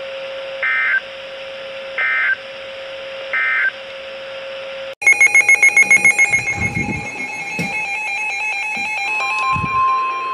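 NOAA Weather Radio EAS end-of-message signal: three short warbling data bursts about a second apart over a steady hum. Then a sudden cut to the start of the next alert: a rapid electronic beeping alarm that settles into steady tones, with another steady alert tone joining near the end.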